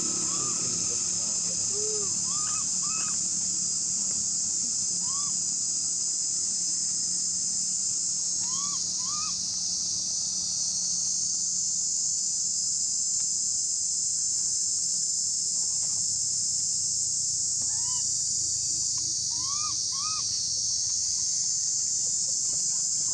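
Steady high-pitched insect chorus, with short rising-and-falling squeaky calls every few seconds, often in pairs.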